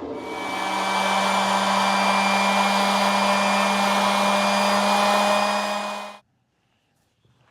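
A woodworking power tool's motor running steadily, a whirring noise over a steady hum, which cuts off abruptly about six seconds in.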